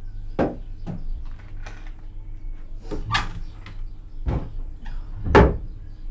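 Kitchen cupboard doors and the things inside being handled: a string of about five separate knocks and clunks, the loudest about five seconds in.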